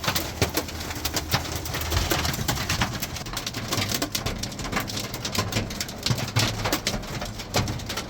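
Hailstones hitting the camper van's metal body and windshield, heard from inside the van: a dense, irregular clatter of sharp ticks and knocks, pretty loud in the cabin.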